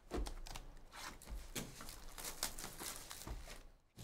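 2022/23 Upper Deck Ice hockey cards and their pack wrappers being handled during a box break: a quick run of rustles, crinkles and small flicks. It eases off shortly before the end.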